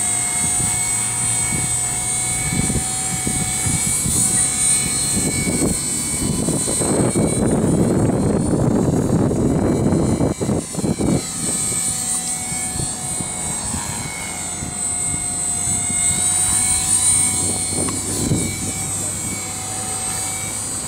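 Walkera V200D03 electric RC helicopter running, its motor and rotor giving a steady whine that dips and rises in pitch a little past halfway. Wind buffets the microphone, heaviest in the middle.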